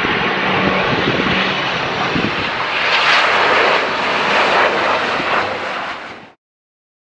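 ATR 72-600 turboprop's engines and propellers running loud during its landing: a steady low drone under a dense rushing noise that swells about three seconds in. The sound cuts off suddenly after about six seconds.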